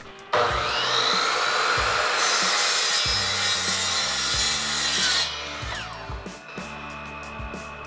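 Electric compound miter saw spinning up with a rising whine, cutting through a piece of aluminum for about three seconds, then winding down with a falling whine.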